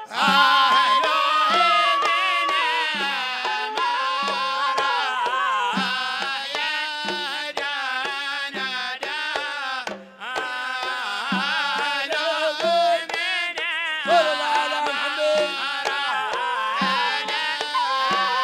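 Hadrami zarbadi song: a singer's ornamented melody over a steady beat of hand drums, with a brief drop about halfway through.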